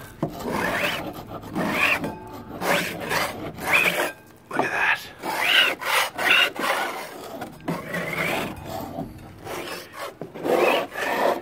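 A hand scraper rasping along wooden deck boards in repeated strokes, about one a second, lifting off a failed deck resurfacer coating that is peeling away from the wood.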